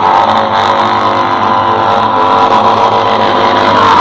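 Harley-Davidson V-twin motorcycle engine running at high revs, its pitch steady and then rising near the end.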